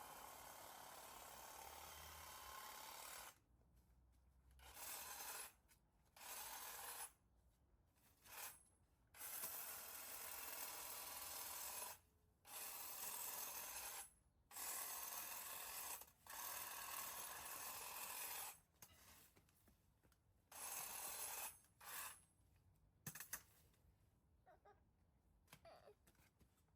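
Electric garden trimmer running faintly in repeated bursts of one to three seconds, switched on and off as it cuts back thick overgrowth along a fence.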